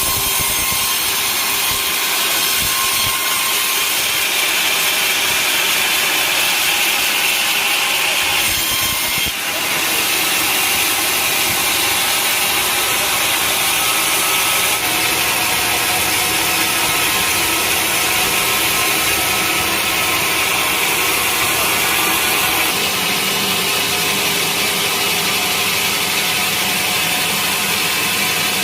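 A sawmill saw cutting steadily through a large teak log, a continuous grinding noise with a machine hum beneath, dipping briefly about nine seconds in.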